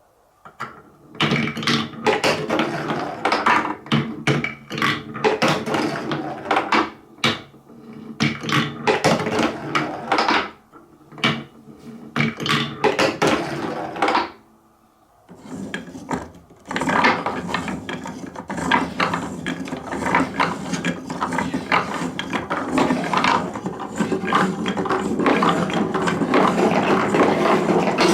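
Marbles rolling and clattering along a TrixTrack marble-run course: a dense rattle of many small clicks that starts about a second in, with short breaks. It stops briefly about halfway, then comes back as a thicker, more continuous rattle toward the end.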